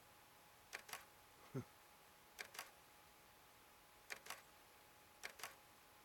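Sharp double clicks, one pair every one to two seconds, against near silence. A brief low falling sound comes about a second and a half in.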